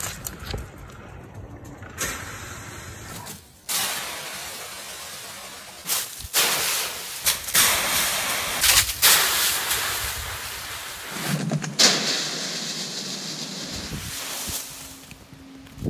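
Dry fallen leaves rustling and crashing as a dog bounds into leaf piles, in several bursts across short cut-together clips.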